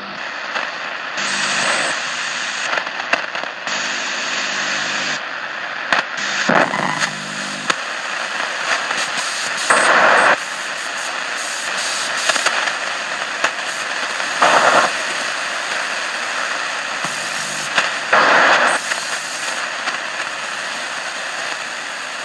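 Shortwave radio receiver, a Grundig DLX 450, hissing with static while tuned near 4.2 MHz, broken every few seconds by short bursts of louder noise, some with a low buzzing tone under them.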